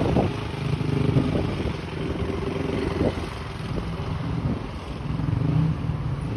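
Yamaha YZ450F dirt bike's four-stroke single-cylinder engine running at a steady low pitch. It gets a little quieter in the middle and louder again near the end.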